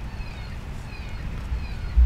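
Short, high falling chirps repeating a few times a second over a steady low rumble.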